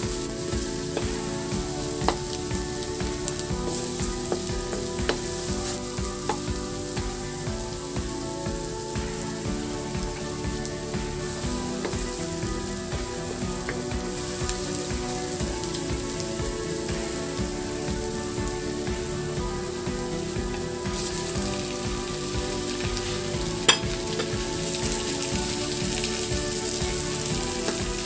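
Minced garlic and onion frying in oil in a granite-coated wok, a steady sizzle with a wooden spatula scraping and stirring. The sizzle grows louder in the last few seconds as whole raw shrimp go into the pan, with one sharp click just before.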